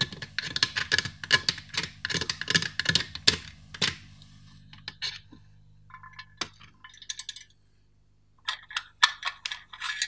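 Small pointed hand tool scraping crusted grime off the painted metal housing of a vintage hand-cranked pencil sharpener: quick scratchy strokes, dense for the first four seconds, then in short bursts. A low steady hum runs underneath.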